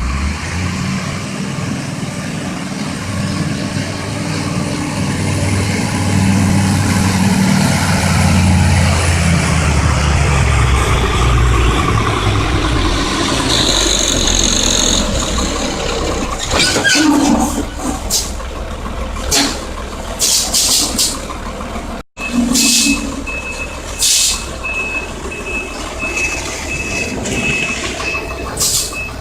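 A heavy vehicle's engine working hard and revving up over the first dozen seconds, followed by several sharp hisses of air brakes. After a cut, a reversing beeper sounds in a steady repeated pattern, mixed with more short air-brake hisses.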